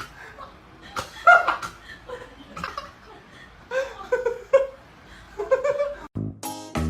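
A person laughing in short, scattered bursts. Music with a steady beat starts near the end.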